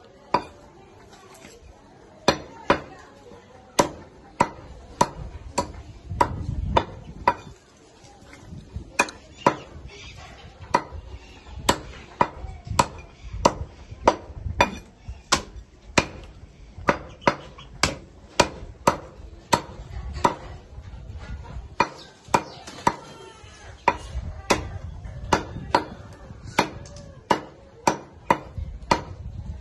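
Heavy cleaver chopping chicken pieces on a wooden log chopping block: a sharp chop every half second or so, in quick runs with brief pauses.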